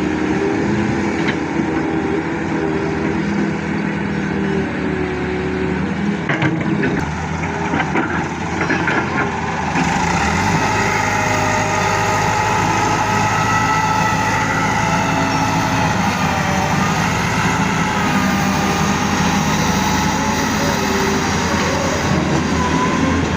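Heavy diesel machinery at work, from an excavator and tractor: engines running steadily, with a few knocks in the first part. About ten seconds in the sound changes abruptly to a fuller, louder running with a wavering higher whine over it.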